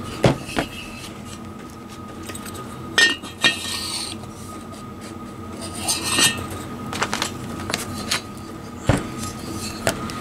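Light metal clinks and knocks, scattered through the whole stretch, as a piston compression ring is worked back into a Triumph Bonneville T140 cylinder bore to sit it square and the cast-iron cylinder barrel is handled on the bench.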